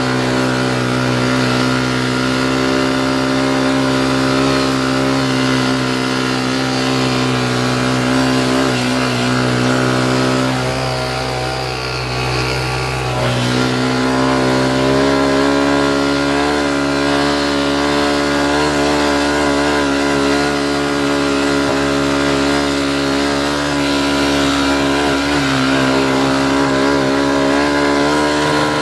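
ATV engine running steadily under throttle, easing off briefly about eleven seconds in, then picking up again at a slightly higher pitch.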